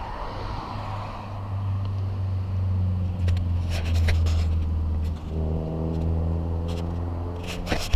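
A car engine running steadily with a low hum, joined by higher engine tones about three and five seconds in, with a few light clicks and knocks.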